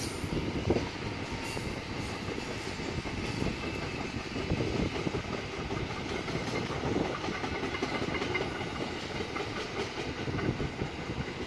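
Intermodal freight train's container flat wagons rolling past, their wheels clacking in a steady run of clicks over a continuous rumble.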